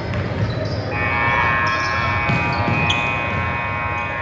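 Gym scoreboard buzzer sounding one long steady tone, starting about a second in and holding past the end, over basketballs bouncing on the court.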